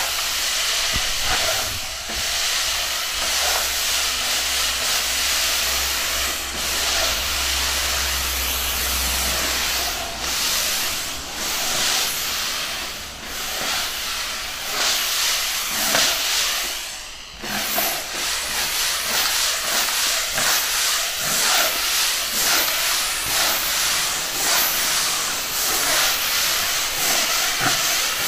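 Kärcher steam cleaner blowing steam through its floor nozzle over tiles: a steady, loud hiss that drops away briefly about two-thirds of the way through. A low hum runs under the hiss for the first several seconds.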